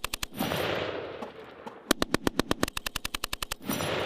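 M240B machine gun firing long bursts of about ten rounds a second: one burst ends just after the start, another runs for nearly two seconds from about two seconds in, and a third begins at the very end. Between the bursts there is a dense hiss.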